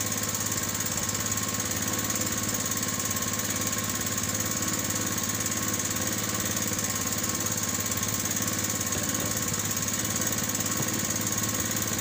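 Outrigger boat's engine running steadily, at an even pitch with a fast regular beat.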